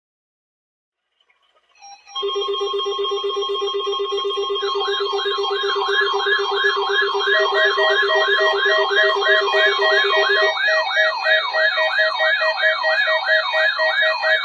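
Several electronic alarm tones sounding together, starting about two seconds in: a buzzing low tone and steady higher tones. A fast rising-and-falling siren-like sweep joins them, then pulsed beeps, while the low buzz stops near the end.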